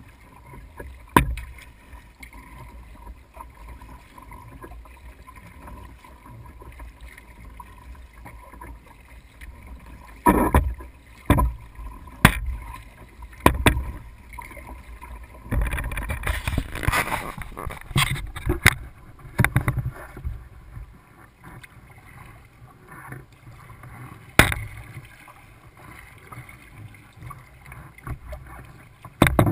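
Sharp knocks and bumps on a kayak, several scattered through and a busier stretch of handling and splashing noise in the middle, over a steady low wind rumble on the microphone.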